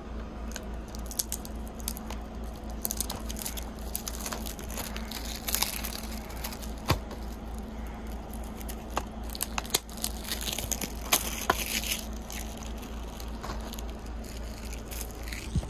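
Clear plastic shrink wrap on a Blu-ray case being torn and crinkled off by hand: irregular sharp crackles and ticks with a few louder snaps. A steady low hum sits underneath.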